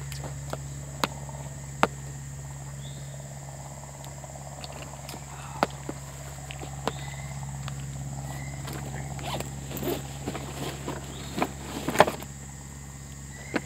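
Scattered clicks, taps and rustles of gear being handled at an open car hatch, busier toward the end, with one louder knock near the end. A steady high insect drone, like crickets, runs underneath.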